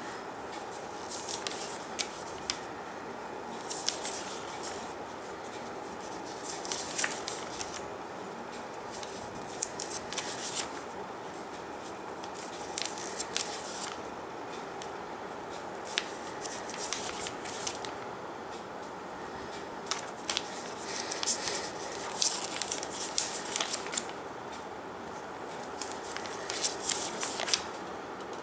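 Pages of a paper instruction booklet being turned and handled, a short crisp rustle every few seconds over a steady background hiss.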